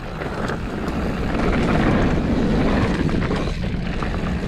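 Wind rushing over the microphone and mountain bike tyres rolling over a rough dirt trail, with scattered clicks and rattles from the bike. It gets louder about a second in and eases slightly near the end.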